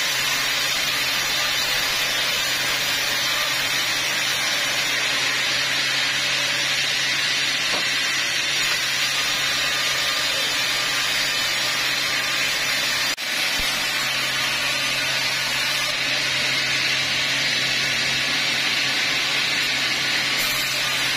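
Large band sawmill running steadily, its blade cutting through teak logs, with a continuous harsh, noisy sawing sound over a low machine hum.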